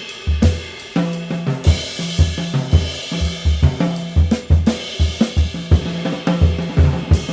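Live jazz quartet playing, with the drum kit out front: busy cymbals and hi-hat, snare and kick hits, over a pulsing bass line and held pitched notes from the other instruments.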